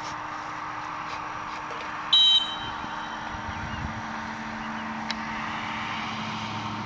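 A single short, loud blast on a dog-training whistle about two seconds in, of the kind a handler gives a retriever running a blind, over a steady outdoor background hiss.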